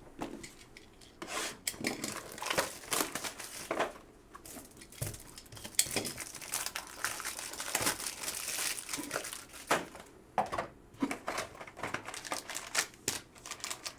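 Plastic and foil wrapping on a box of trading cards crinkling and tearing as it is opened by hand, in irregular crackles with a denser stretch of tearing about halfway through.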